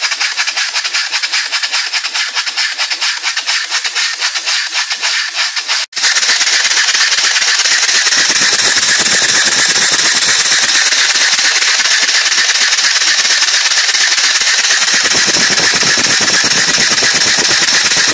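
Briggs & Stratton four-stroke lawnmower engine running on compressed air, puffing in a fast, even train of sharp chuffs. After a cut about six seconds in it runs louder as a continuous hissing rattle.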